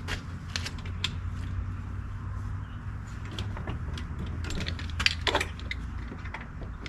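Irregular metal clicks and clinks of hand tools working the door's mounting hardware, with a busier cluster about five seconds in, over a steady low hum.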